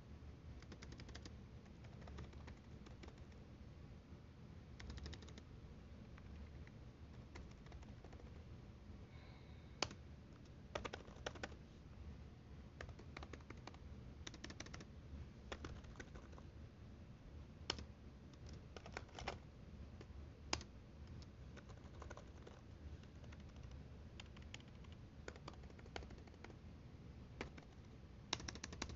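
Keys on an HP Chromebook clicking as they are pressed, faint and at irregular intervals, with a faint low hum underneath.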